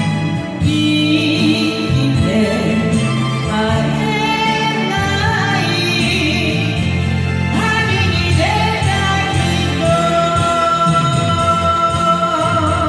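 A Japanese popular song (kayōkyoku) performed live: singing over instrumental backing music with a steady bass line, and long held notes near the end.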